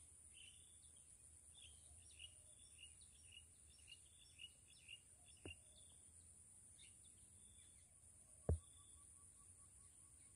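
Faint bird chirping in short repeated notes over a steady high hiss, with two sharp knocks, the louder one near the end.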